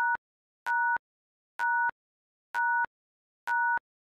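Quiz countdown-timer sound effect: a short electronic two-tone beep about once a second, five beeps, each cut off with a click.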